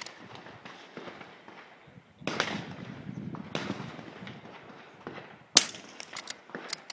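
A single sharp rifle shot about five and a half seconds in, with several fainter sharp cracks of gunfire before and after it.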